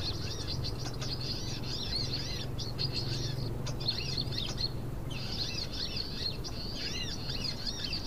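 Small birds, sunbirds, chirping and chattering in quick, high, twittering calls, with a short lull a little past halfway. A steady low hum runs underneath.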